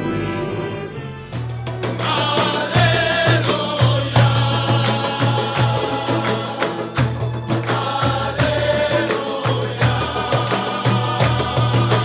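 Music: a held chord fades, then about a second in an upbeat song starts, with a steady drum beat, a bass line and sung voices.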